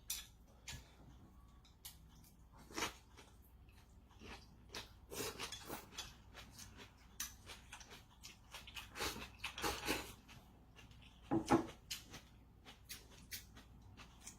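Scattered light clinks and knocks of kitchen utensils against dishes, with a few short scraping clusters, the loudest about eleven and a half seconds in.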